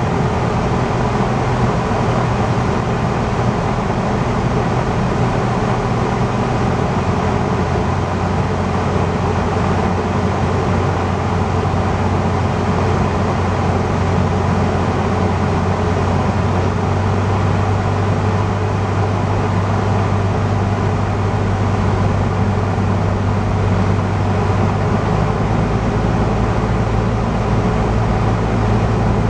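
Cessna A150M Aerobat's four-cylinder Continental O-200 engine and propeller running steadily in cruise-descent, heard inside the cabin with airflow noise. Its low drone shifts pitch slightly a couple of times as power is adjusted on the approach.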